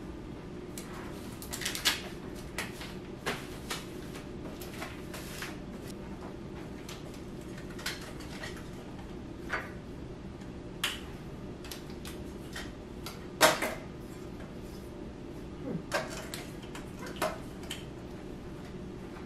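Scattered knocks, clicks and light clatters of household items being handled and set down during tidying, over a steady low background hum. The loudest knock comes about two-thirds of the way through.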